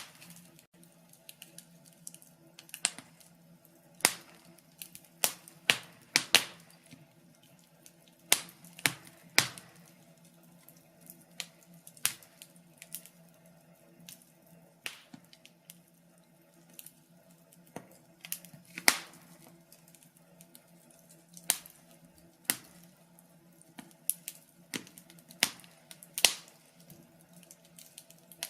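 Wood fire crackling, with irregular sharp pops and snaps a few times a second, some much louder than others.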